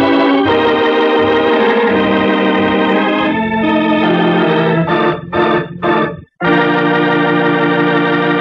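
Organ music closing a 1950 radio drama broadcast: sustained chords, then three short chords about five seconds in, a brief break, and a final held chord.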